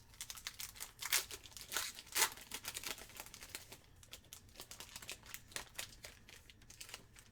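Plastic trading-card pack wrapper crinkling and being torn open, a run of crackles that is loudest and busiest in the first three seconds, then goes on more lightly.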